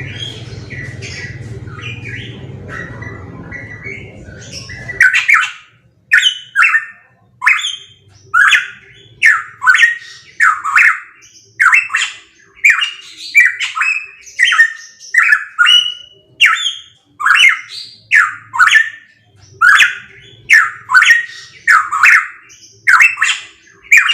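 Pitohui calling over and over in short, loud, squawky whistled calls, about one a second. For the first five seconds the calls are fainter over a low background hum and hiss. Then the sound switches to clean, louder calls.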